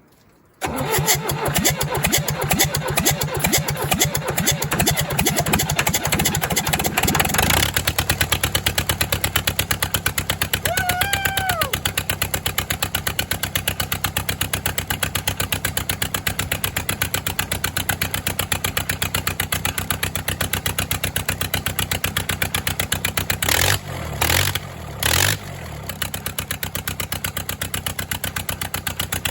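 1963 Case 310F bulldozer's diesel engine cranked on its starter for about seven seconds, then catching and running with a fast, even, loud exhaust beat from its open exhaust ports, the exhaust manifold being off. It falters briefly twice near the end. One cylinder is suspected of an injector issue.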